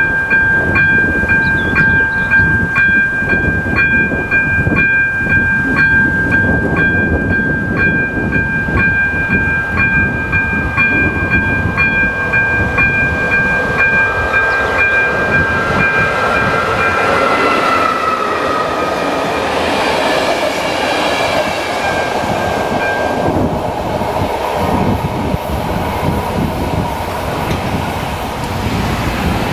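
Electronic level-crossing bell (ZV02) ringing with a steady beat of about two strokes a second and stopping a little past halfway, over the continuous rumble of a train running over the crossing.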